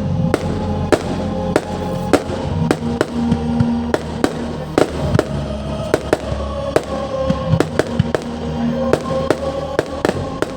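Fireworks going off: a string of sharp bangs, about two a second at uneven spacing, with music holding steady notes underneath.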